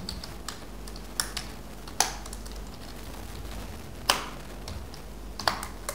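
Computer keyboard keys pressed one at a time, a handful of separate sharp clicks spaced unevenly, over a steady low hum.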